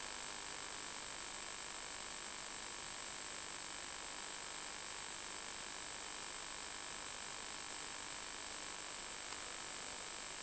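Steady static hiss from the audio output of a 1.2 GHz analog FPV video receiver, with a thin, high steady whine over it and no other sound.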